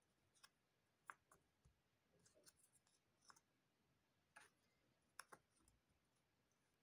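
Faint, scattered clicks and light taps of cardboard jigsaw puzzle pieces being handled and pressed into place on a mat, about ten in all; the sharpest come about a second in and about five seconds in.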